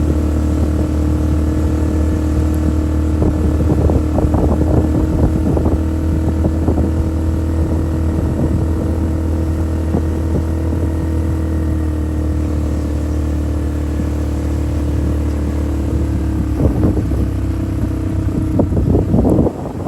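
Off-road vehicle engine running steadily under way, with stretches of rattling and clatter about four seconds in and again near the end.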